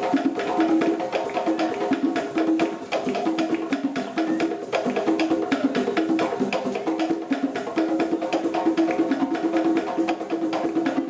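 Live African hand-drum ensemble playing a fast, busy rhythm on tall wooden standing drums struck by hand, with many sharp, clicking strokes a second.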